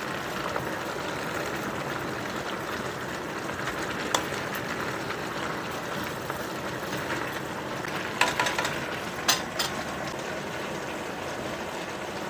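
Squash, string beans and pork cooking in a stainless steel pan with a steady hiss, stirred with a spatula that clicks and scrapes against the pan once about four seconds in and a few times between eight and ten seconds.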